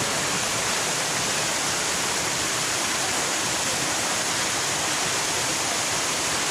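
Waterfall and a shallow stream rushing over rock: a steady, even rush of water.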